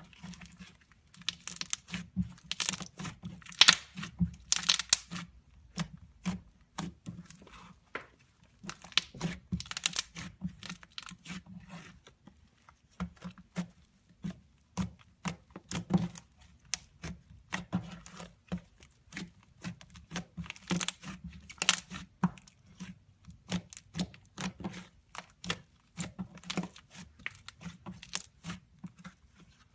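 Slime being squeezed and stretched by hand, giving a continuous run of irregular sticky crackles and pops, thicker and louder a few seconds in, around ten seconds and again near twenty-one seconds.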